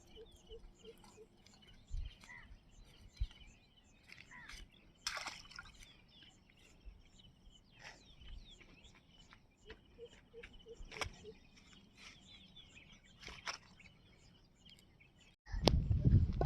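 Outdoor rural ambience with small birds chirping over and over, and a few sharp clicks or knocks along the way. A louder, rough noise starts suddenly just before the end.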